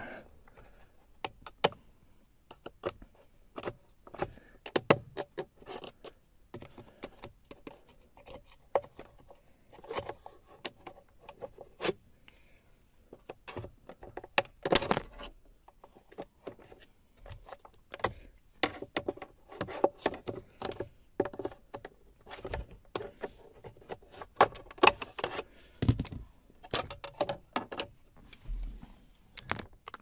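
Plastic trim tool prying up a Mercedes W204 C-Class centre console trim panel: many irregular clicks and snaps of plastic, with occasional scraping, as its retaining clips are worked loose.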